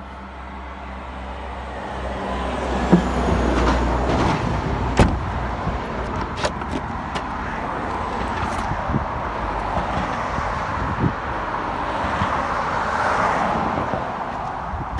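Steady motor vehicle noise that swells about two seconds in and holds, with a few sharp clicks and knocks over it.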